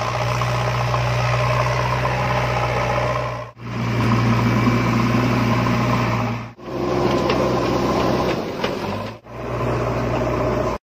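A steady, idling engine drone with a strong low hum, in four stretches about three seconds long, each dipping away briefly before the next starts.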